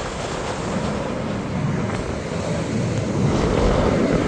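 Steady rushing noise of wind on the microphone and surf, mixed with the distant noise of display jets, growing louder about three seconds in.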